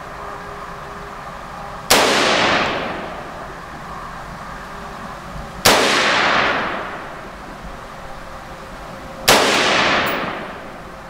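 Three rifle shots from the MGS Firearms Citizen rifle, a few seconds apart, each with a long echoing tail that dies away over about a second: a group fired to check the zero while sighting in the scope.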